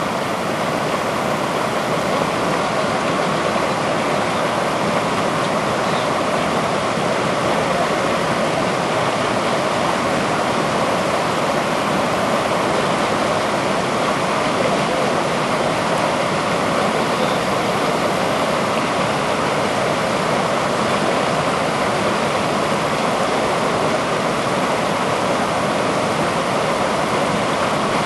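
Flowing river water rushing steadily, an even, unbroken hiss with no splashes or changes.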